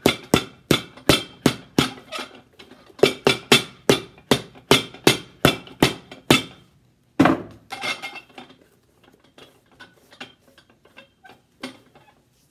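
Hammer blows setting a freshly glued outsole onto a Red Wing boot's midsole: quick, even strikes at about four a second with a short pause, one heavy blow about seven seconds in, then lighter taps that thin out.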